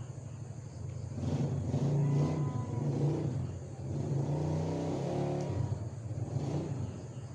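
A motor vehicle engine running, growing louder about a second in and easing off near the end.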